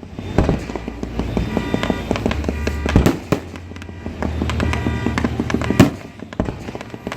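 Fireworks display: sharp booming bursts, the loudest about three seconds in and just before six seconds, with crackling between them, over music playing.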